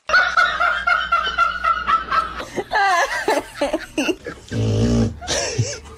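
A person laughing in a high, quavering giggle for about two seconds, followed by a few short wavering vocal sounds.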